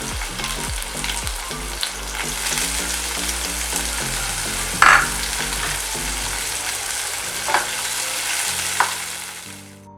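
Chopped capsicum and garlic sizzling in hot oil in a pan as they are stirred, with a few sharp knocks against the pan, the loudest about five seconds in. The sizzle fades away near the end.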